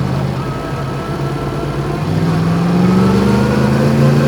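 Yamaha MT-10's crossplane inline-four engine, fitted with an Akrapovic exhaust, running at low revs, then pulling in gear from about two seconds in with a slowly rising engine note.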